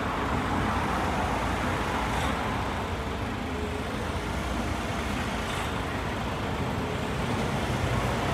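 Steady road traffic noise, with a bus engine running.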